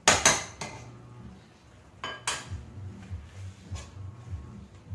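Kitchen utensils clattering on cookware: a quick cluster of sharp metal knocks right at the start, then a single clink about two seconds in, as a ladle is knocked against the pot and set down on a dish.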